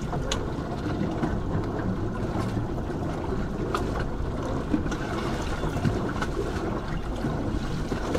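Sailing yacht's inboard engine running steadily, eased into gear as a test for a loud roaring vibration from under the boat, with water washing along the hull. The running is even throughout, with a few light clicks and no sudden roar.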